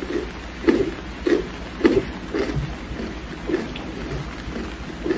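Steady rain with a rhythmic crunching over it, about two crunches a second.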